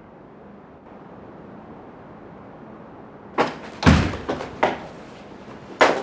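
Faint room tone, then a door being opened: a sharp clack about three and a half seconds in, a heavy thud just after, then several lighter knocks and clicks.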